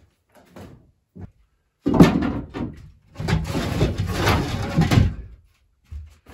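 Clattering and scraping of hard objects in two bursts: a short one about two seconds in and a longer one from about three to five seconds, with a few lighter knocks around them.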